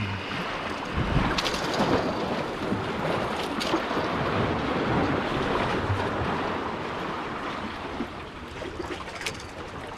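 Wind noise on a GoPro microphone over the wash of sea water, with a few short sharp clicks.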